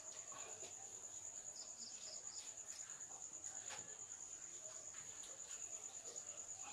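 A cricket trilling faintly and steadily in a high, slightly pulsing tone. A short run of four quick chirps comes about a second and a half in, with a few faint taps.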